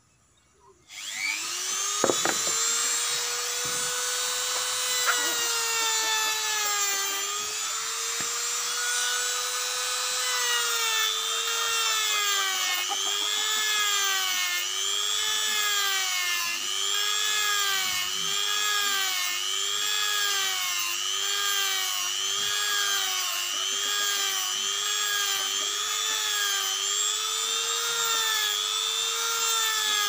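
Corded handheld rotary carving tool switched on about a second in, spinning up to a steady high whine. From about ten seconds on, the whine dips in pitch and recovers about once a second as the bit is pressed into the wood in short strokes, cutting feather grooves.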